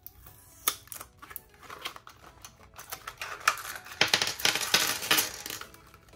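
Plastic packaging handled and opened with scattered clicks, then a dense clatter about four seconds in as a handful of clear plastic planner discs tumbles out onto a table.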